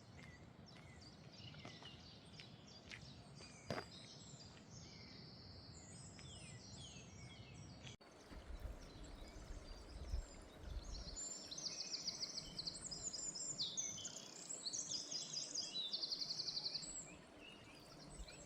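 Small songbirds singing in woodland, several overlapping songs of quick chirps and rapid trills, busiest and loudest in the second half. A few light clicks come in the first few seconds, and a low rumble a little after the middle.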